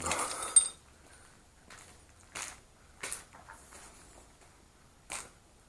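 A handful of separate footsteps crunching on a rubble- and debris-strewn concrete floor, with quiet between them.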